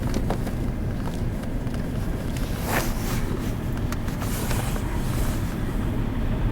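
Steady low rumble of semi-truck diesel engines running, with a short hiss about three seconds in.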